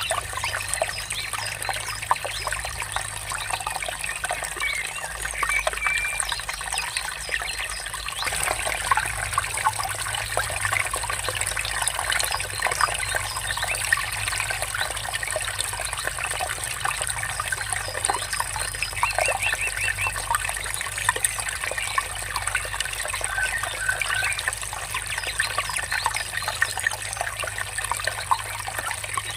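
Water trickling and splashing steadily, with small birds chirping now and then, including a short rapid trill about two-thirds of the way in.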